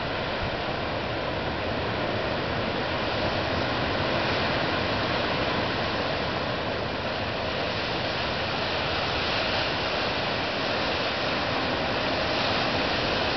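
Pacific surf breaking along the shore, heard as a steady wash of noise with no single crash standing out.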